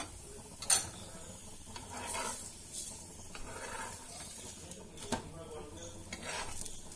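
A metal spatula clinks and scrapes on a non-stick tawa as a kuttu paratha is turned and pressed, over a light sizzle of the paratha frying in ghee. There is a sharp clink about a second in and another about five seconds in.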